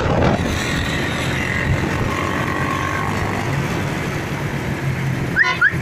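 Small motorcycle's engine running steadily on the move, fed hydrogen gas from a homemade HHO kit into its carburettor intake, with wind and road noise. Two short rising chirps come near the end.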